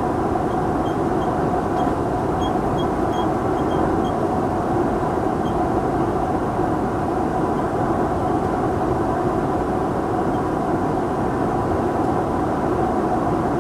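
Steady, unchanging jet airliner noise of engines and rushing air, with a faint hum in it and a few faint light clinks about two to four seconds in.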